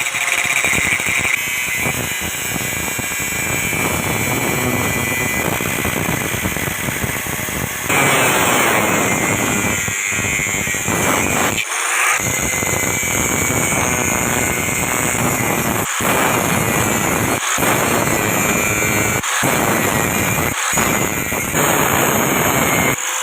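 Power tool working steel: a loud, continuous grinding noise that breaks off abruptly several times and starts again at once.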